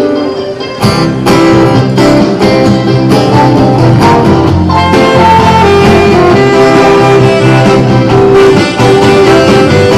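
Live band music without singing: a held melody line over guitar and bass, with a brief dip in the first second before the band comes back in full.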